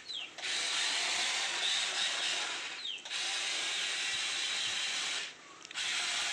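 Small electric motors of a toy miniature excavator whirring as it is driven. The whirring stops briefly three times, near the start, about three seconds in and about five and a half seconds in, and it winds down with a short falling whine at two of the stops.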